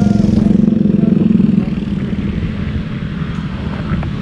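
Motorcycle engine running steadily under way, its level dropping a little about a second and a half in.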